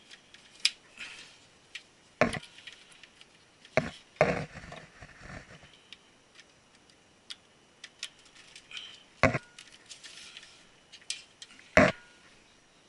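Cable connectors being plugged into ports inside a computer server case: scattered sharp clicks and knocks with light handling rustle between, the loudest knocks a few seconds apart.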